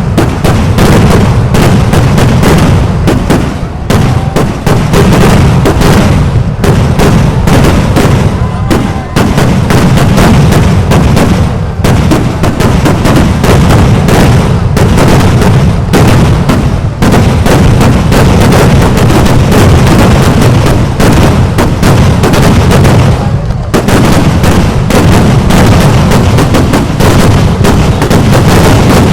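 Kerala temple-festival fireworks (vedikkettu): a dense, continuous barrage of loud firecracker explosions, bang after bang with almost no gaps, with a brief dip near the end.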